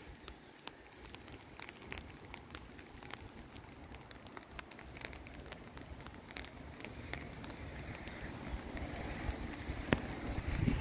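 Light rain falling, with many scattered drops tapping one by one; the sharpest tap comes near the end. A low rumble of wind on the microphone builds toward the end.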